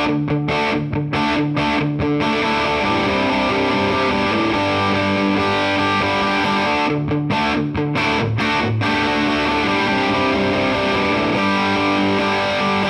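Distorted electric guitar through a Mesa/Boogie TransAtlantic amplifier in channel 2's High 2 mode, playing a riff of strummed chords. The chords are cut short in quick stop-start stabs near the start and again around the middle, and are left to ring in between.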